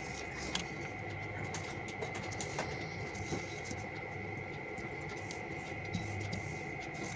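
Foil-backed origami paper crinkling and crackling in short bursts as hands fold an edge strip and press it flat. Under it runs a steady background hum with a thin high whine.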